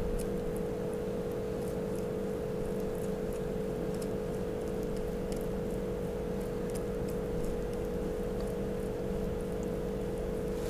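A steady machine hum throughout, with faint, irregular scratchy strokes of paneer being grated on a handheld grater over the cooked capsicums.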